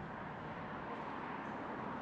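Steady road noise of a car being driven: an even hiss with no distinct engine note or sharp sounds.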